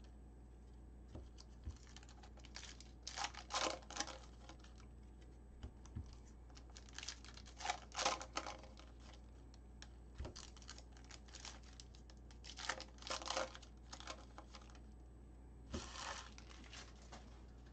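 Plastic-foil wrapper of a Topps Gold Label baseball card pack crinkling and tearing as it is pulled open by hand, in several short spells of crinkling a few seconds apart, with light taps of card handling between them.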